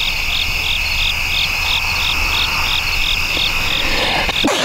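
Evening insect chorus: a steady high trill with a pulsing call repeating about three times a second over it.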